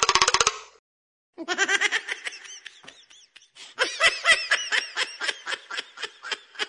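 A fast, evenly repeating buzz cuts off about half a second in. After a short silence, high-pitched laughter follows in a long run of quick, short bursts.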